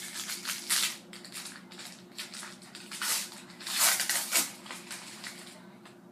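Foil trading-card pack wrapper crinkling and tearing as a new pack is opened by hand and the cards are slid out. The sound comes in irregular bursts, loudest about a second in and again around four seconds in.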